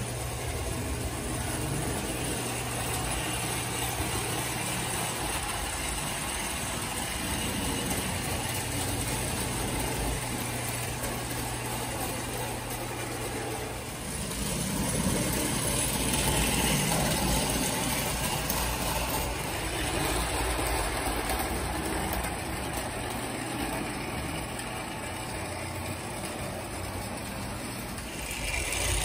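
Lionel standard gauge toy train running on tinplate track: a steady rumble with a low hum, a little louder after about halfway.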